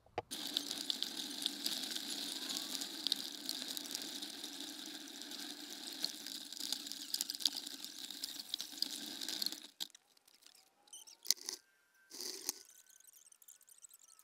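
Stroller wheels rolling and rattling over the ground, picked up through the stroller frame the camera rides on, with a dense stream of small ticks; the rolling stops suddenly just under ten seconds in. After that come two sharp knocks and faint thin whistling tones.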